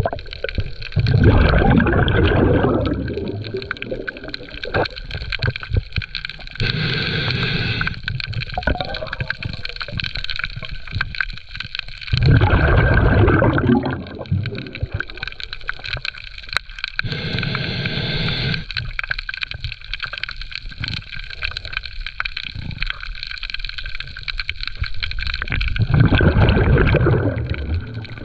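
Underwater breathing of a diver: exhaled air bubbling out three times, about twelve seconds apart, with a steady high hum and faint crackle in between.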